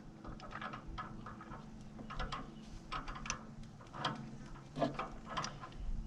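Irregular small clicks, taps and scrapes of hand tools and parts being handled, over a faint steady hum.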